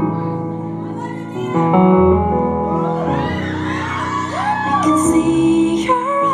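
Live performance of a slow K-pop ballad: keyboard chords over the PA, with fans whooping and cheering over them in the middle. A woman's voice starts singing a held note near the end.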